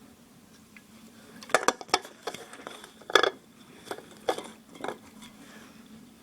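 A string of sharp clinks and knocks of tableware being handled, starting about a second and a half in and loudest about three seconds in.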